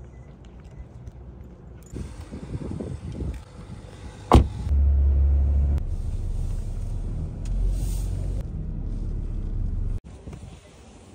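Footsteps on pavement, then a single sharp thud about four seconds in, followed by a car's steady low engine and road rumble heard from inside the cabin.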